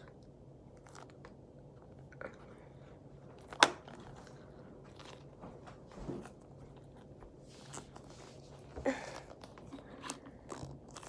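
A foam squishy toy being squeezed and handled close to the microphone: soft, irregular crackly squishing and rubbing noises, with a sharp click about three and a half seconds in.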